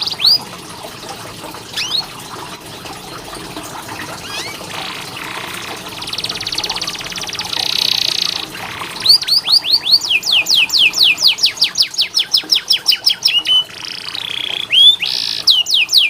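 Domestic canary singing. Scattered chirps and buzzy trills give way, about nine seconds in, to a long rolling run of rapid down-slurred notes, about six a second, and a second such run begins near the end.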